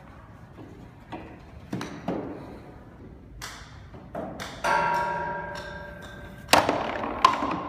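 Mini golf ball rolling down a long wooden chute lined with artificial turf, knocking against the wooden sides with a series of clacks and thumps. About halfway through comes a ringing tone that dies away over nearly two seconds. Two loud knocks follow near the end.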